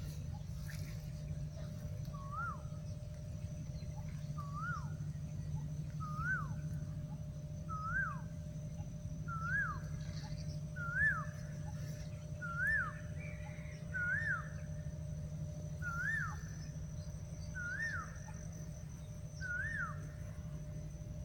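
A bird repeating a single short whistled call, a quick rise then a steep drop in pitch, about every second and a half to two seconds. A steady low hum runs underneath.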